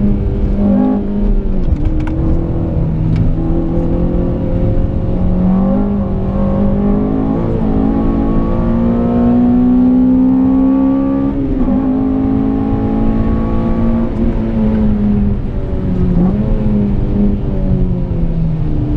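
Honda Civic Type R FN2's 2.0-litre K20 four-cylinder engine heard from inside the cabin under hard acceleration: its pitch climbs steadily for several seconds, drops sharply about halfway through, climbs again and then falls away with a couple of brief dips as the car slows.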